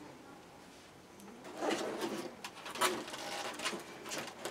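Cardboard lightsaber box being opened. After about a second and a half of quiet, cardboard scrapes and rustles in uneven bursts as the lid is lifted, with a few light clicks.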